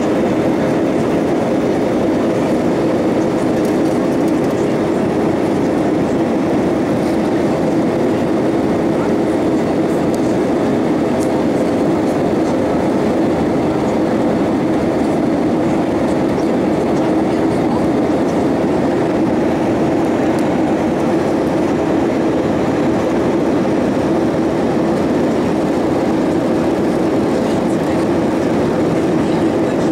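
Steady cabin noise of an Airbus A320-232 airliner in flight: an unbroken hum of its IAE V2500 jet engines and airflow past the fuselage, with a few faint steady tones in it.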